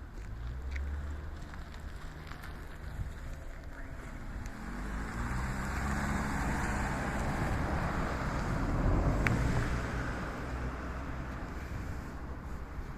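A motor vehicle passing close by: its engine hum and tyre noise swell over several seconds, peak, then fade away.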